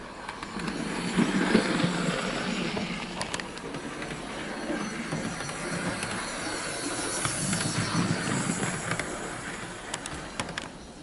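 Hornby OO gauge model of an SE&CR H class tank locomotive running along the layout track: a steady rumble of motor and wheels on rail. It swells about half a second in and eases off near the end, with a few sharp clicks along the way.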